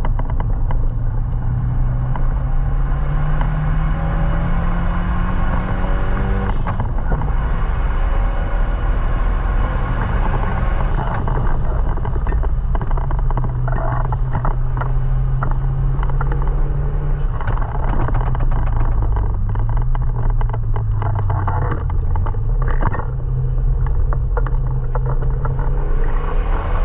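Renault Mégane RS 225's 2.0-litre turbocharged four-cylinder engine accelerating hard through the gears. The pitch climbs for several seconds, drops at a gear change about seven seconds in, and climbs again. It then holds, falls and wavers past the middle as the car slows, and rises once more near the end.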